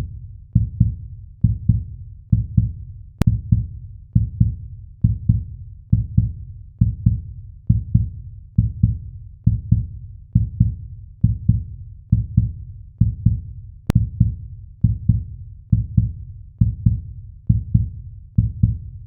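Heartbeat sound effect: a steady lub-dub of deep double thumps, about one beat a second.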